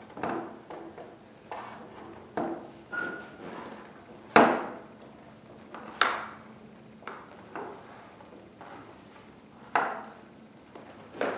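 About eight irregular knocks and clunks as the metal headrest height adjustment tab of a Balanced Body Allegro 2 reformer is worked into its slot in the carriage's plywood and sheet-metal bracket. The loudest knock comes about four seconds in.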